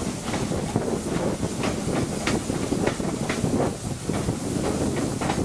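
Steam-hauled train running at speed, heard from an open carriage window: a steady rush of air and running noise, with short sharp beats of the locomotive's exhaust and wheels at about two a second.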